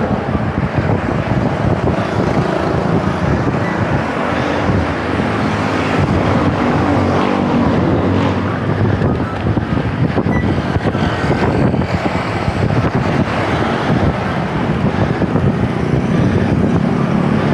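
Road traffic heard from a moving bicycle: motor vehicles running past, mixed with wind noise on the microphone.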